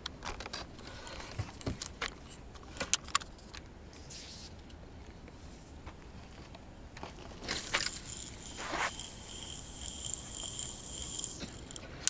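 Clicks and taps of a feeder rod and spinning reel being handled, then, about seven seconds in, a steady high hiss with a thin whistle lasting about four seconds as line runs off the spinning reel during a cast.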